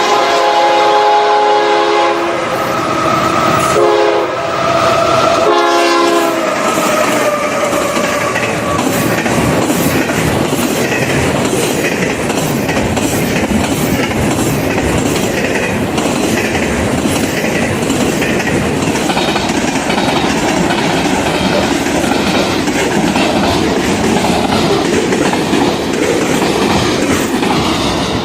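Nathan K5HL chime air horn on a CSX ES40DC freight locomotive sounding as it passes: a long chord that drops in pitch, then two short blasts. The freight cars then roll by with a steady, rhythmic clickety-clack of wheels over the rail joints.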